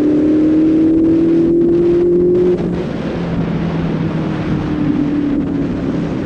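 Benelli 600i's inline-four engine pulling under throttle with a slowly rising note. About two and a half seconds in the throttle eases, and the bike runs on more quietly with a steady, slightly falling note.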